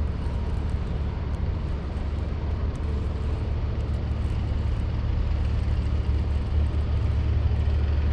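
Steady low engine rumble of heavy construction machinery running, an even drone that holds level without revving up or down.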